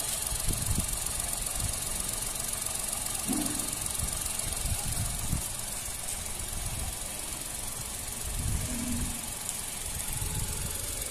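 Tata Altroz 1.2-litre naturally aspirated three-cylinder petrol engine idling steadily below 1000 rpm, warmed up, heard from outside with the bonnet open. Wind buffets the microphone.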